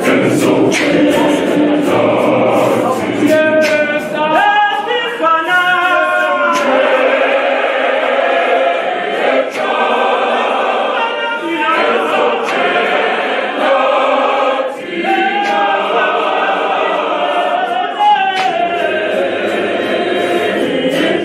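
Zionist church choir of mostly women's voices singing a hymn in close harmony, unaccompanied by instruments, with sharp percussive beats through the singing.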